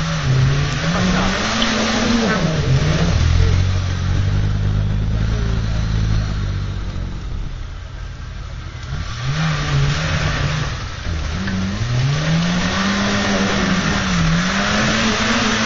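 A small off-road 4x4's engine revving up and down again and again under load while climbing a muddy slope. It holds a steadier, lower pitch for a few seconds, dips briefly around the middle, then revs up and down several more times.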